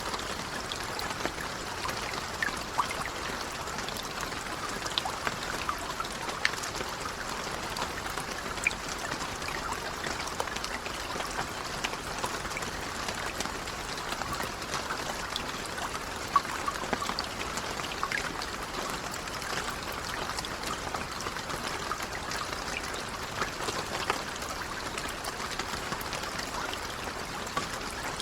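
Calm, gentle rain falling steadily: an even hiss with many individual drops ticking through it.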